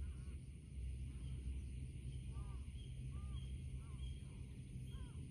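Outdoor ambience: birds repeating short calls that rise and fall, about one or two a second, with faint brief high chirps, over a low steady rumble.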